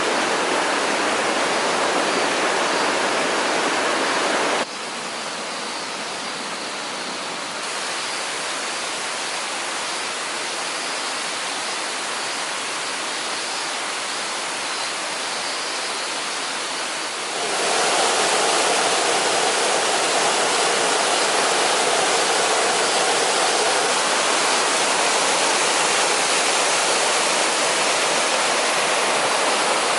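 Steady rushing water of a waterfall. It drops suddenly to a softer, duller rush about four and a half seconds in, then jumps back to a loud, full rush about seventeen seconds in.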